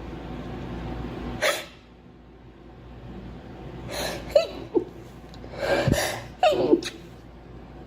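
A woman sneezing: a short sharp burst about a second and a half in, gasping in-breaths building up around four seconds in, then a sneeze at about six seconds followed quickly by another.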